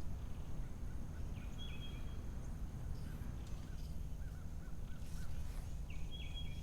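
Birds calling over a steady low outdoor rumble: one short call given twice, about a second and a half in and again near the end, and a quick run of about five short notes in between.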